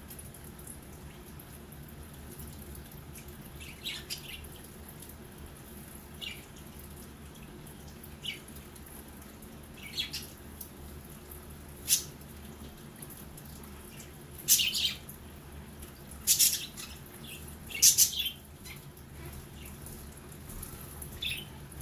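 Budgerigars giving short, high chirps every second or two, the loudest three close together about two-thirds of the way through. Underneath, a small electric pet water fountain runs with a steady low hum and a trickle of water.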